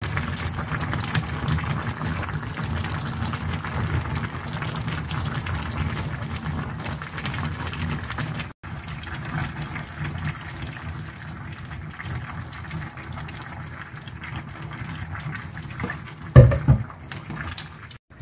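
Pot of doenjang stew bubbling at a steady boil, with one short, loud thump near the end.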